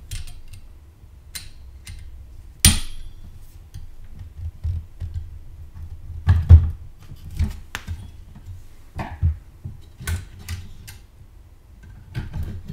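Metal clicks and knocks of a Socket A CPU cooler being fitted, its spring retention clip pressed and levered over the socket lugs with a screwdriver, with low bumps of handling between. The clicks come scattered, the sharpest a bit under three seconds in and the loudest around six and a half seconds.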